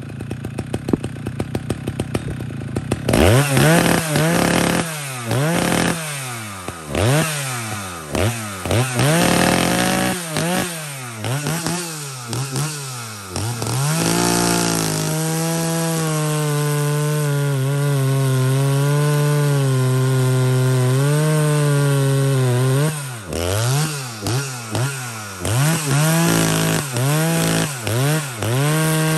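Husqvarna 2101 two-stroke chainsaw idling for a few seconds, then revved up and down in quick bursts with a four-stroking burble at free revs. From about halfway it holds steady full throttle cutting through a large log, with another run of quick revs before it settles back into the cut near the end.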